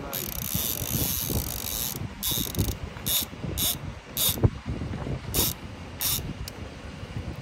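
Heavy conventional fishing reel's drag buzzing as a goliath grouper pulls line off against the bent rod: a steady run for the first two seconds, then about seven short surges. A single thump about halfway through is the loudest sound.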